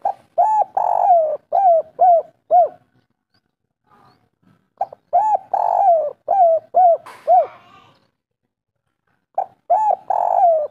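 Spotted dove singing its 'kuk 3' song. Each phrase is a short opening note, a longer rolling coo, then three short clipped coos. The phrase comes three times, a few seconds apart, with the last starting near the end.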